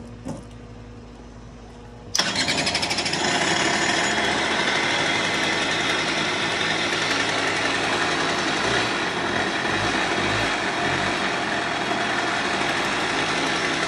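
Suzuki LT80 quad's small two-stroke single-cylinder engine catching about two seconds in and then running steadily, its first run after sitting for years.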